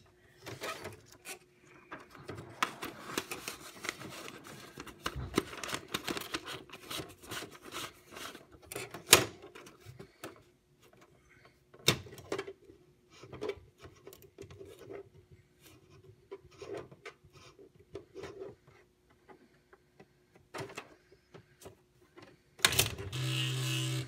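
Smith Corona SL 500 electronic typewriter at work: irregular mechanical clicks and clacks over a faint steady hum, with one sharper clack about nine seconds in. Music comes in near the end.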